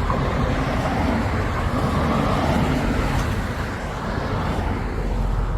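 Road traffic noise: cars going by, a steady rumble.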